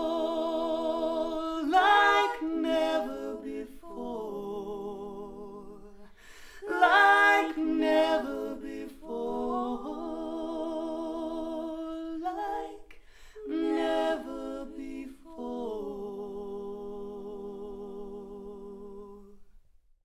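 Female voice singing long wordless notes with vibrato, phrase after phrase, the last note fading out near the end. It is played back through Harbeth SHL5+ hi-fi loudspeakers and picked up by a microphone in the room.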